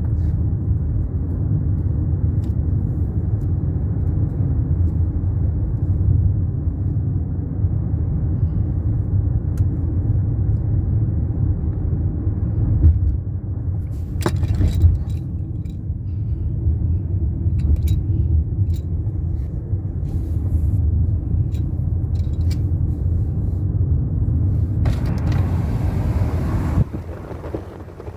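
Steady low rumble of a car driving, heard from inside the cabin. Near the end a brief louder hiss comes in, and then the level drops.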